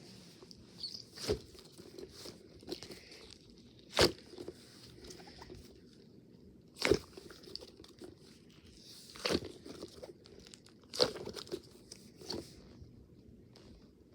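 A series of crunching, crinkling sounds: about six sharp crunches a couple of seconds apart, with soft rustling between them.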